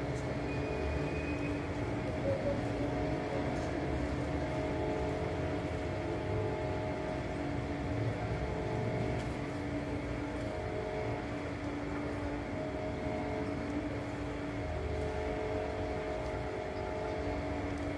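A steady mechanical hum: a machine or motor running at an even pitch with several held tones over a low rumble, unchanging throughout.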